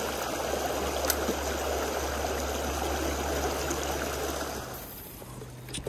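A shallow stream riffle rushing over stones, a steady rush of water that fades away after about four and a half seconds.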